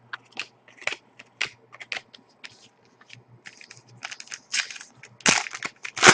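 A hockey card pack wrapper being crinkled and torn open by hand: a quick, irregular run of sharp crackles that gets denser and louder toward the end.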